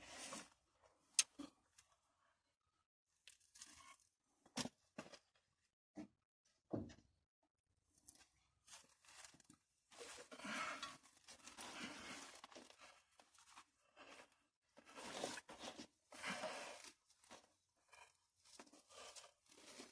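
Faint, scattered clicks and knocks with stretches of scraping and rustling: hand tools and parts being handled during starter removal.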